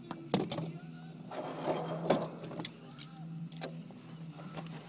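Scattered clicks and knocks of tools and metal fittings being worked at the top edge of a roof-mounted solar hot water panel, over a steady low hum.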